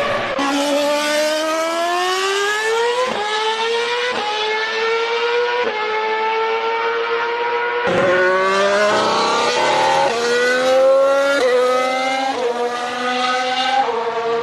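Formula 1 car engine at full throttle, climbing steadily in pitch and dropping sharply at each quick upshift, again and again through the gears.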